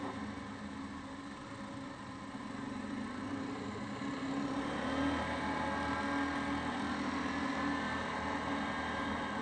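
Yamaha Grizzly 550 quad's single-cylinder four-stroke engine running under way, its note getting louder as it picks up speed from about two seconds in, then holding steady.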